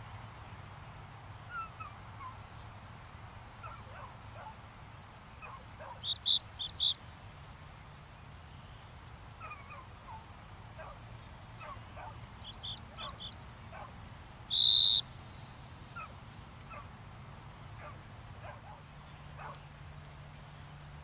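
Gundog training whistle: three quick toots about six seconds in, a fainter few near thirteen seconds, then one longer loud blast near fifteen seconds in, the usual single-blast sit whistle. Faint short chirps run underneath throughout.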